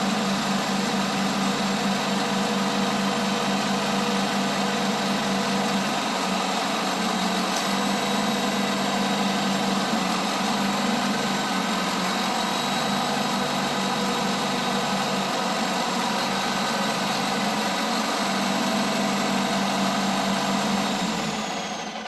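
John Deere backhoe's diesel engine running steadily at a constant speed. Near the end the sound falls in pitch and fades away.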